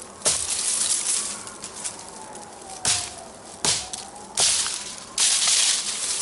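A heavy 8 mm thick Camillus Carbon V kukri chopping limbs off a fallen tree: five sharp blade strikes into wood, spaced unevenly, with rustling of dry leaves and twigs between them.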